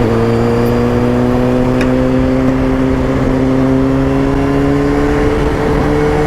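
Kawasaki ZX-6R's inline-four engine pulling under load while riding, its pitch rising slowly and steadily as the bike gains speed, with a low rumble of wind underneath.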